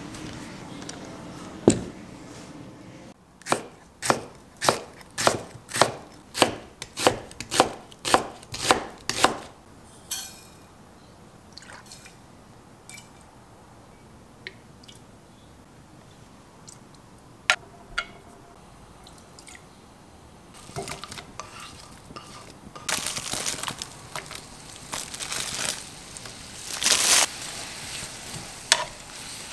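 Kitchen knife chopping on a cutting board: about ten even strokes, a little over half a second apart. Later come scattered light clinks, then hissing and clatter as seasonings go into a frying pan and a wooden spatula stirs sliced onions.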